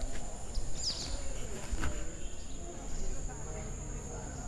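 Outdoor garden ambience: a steady high-pitched insect drone, with one short falling bird chirp about a second in and faint voices in the background.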